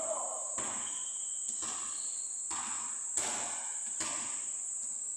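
A basketball bouncing on a gym court floor about five times at uneven intervals, the loudest a little after three seconds in, over a steady high-pitched insect drone.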